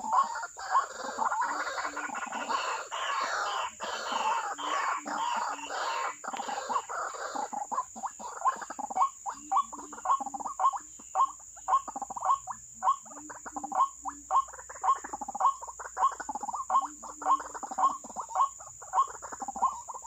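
White-breasted waterhen calls: a short note repeated over and over. The calls are dense and overlapping for the first several seconds, then settle into an even rhythm of about two notes a second.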